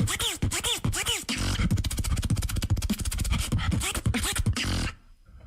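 Vocal beatboxing: a fast, dense string of clicks, snare hits and bass, mixed with repeated rising-and-falling pitch sweeps. It stops abruptly about five seconds in.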